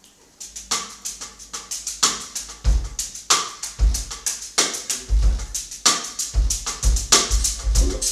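Drum kit starting a steady groove about half a second in, with quick even cymbal strokes and snare hits; deep electric bass notes join about two and a half seconds in.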